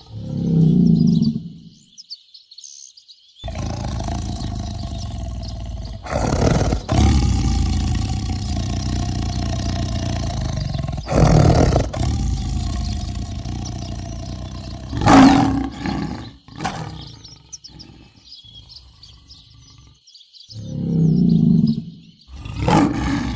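Lions roaring and growling, several loud roars in a row with rumbling stretches between them.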